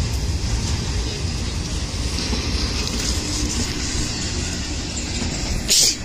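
Intermodal well cars of a freight train rolling slowly past on the rails, a steady low rumble and hiss. A brief sharp noise stands out just before the end.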